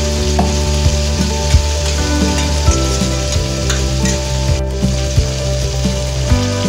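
Tomato wedges and sliced onions frying in hot oil in a wok: a steady sizzle with scattered sharp pops.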